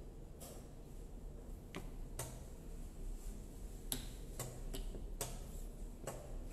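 Sharp clicks and taps of chess pieces being set down and chess clock buttons being pressed during fast blitz play, about eight at an irregular pace, over a steady low hum.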